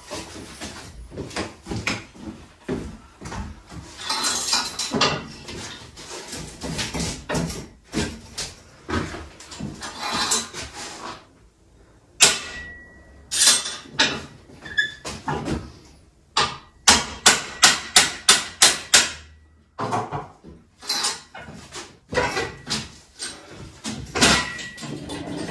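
Steel acrow props being knocked loose and taken down: repeated metallic clanks and knocks, with a quick run of about nine strikes, roughly four a second, a little over halfway through.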